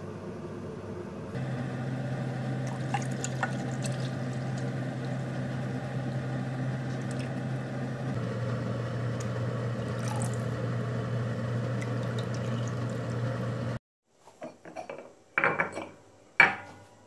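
Water running steadily, as into a sink or container, with a low hum under it and a few light clinks. It stops abruptly, followed by several short clatters of dishes or kitchenware.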